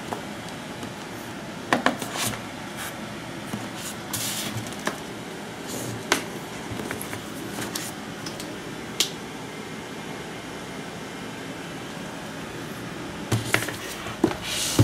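Cardboard tablet box handled on a desk: scattered light knocks and taps as it is set down and turned over, with a brief scrape about four seconds in, over a steady faint background hiss.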